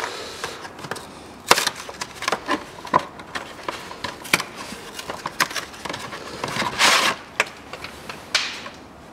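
Scattered light clicks and knocks from hand-handled parts and tools during timing belt fitting, with a short rustle about seven seconds in.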